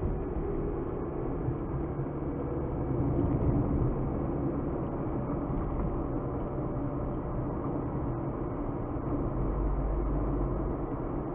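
Car driving along a road: steady engine and tyre noise, swelling louder about three seconds in, with a deeper low rumble near the end.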